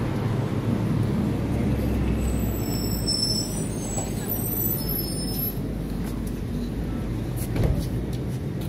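A MAN city bus pulling in and stopping at the stop, its engine rumbling low and steady, with a brief louder burst near the end.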